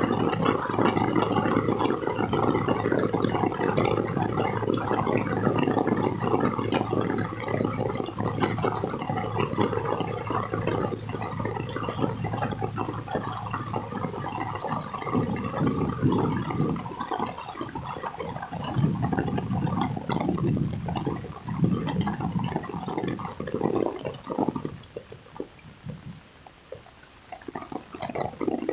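Heavy rain falling as a dense, irregular patter of water. It dies down for a few seconds near the end, then picks up again.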